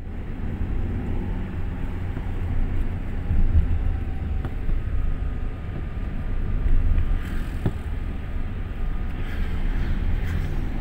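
Steady low rumble of a car on the move, engine and tyre noise heard from inside the cabin, with one brief knock about three quarters of the way through.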